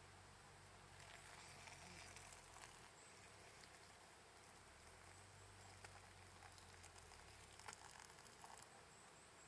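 Near silence: a faint hiss with a few scattered light ticks and clicks.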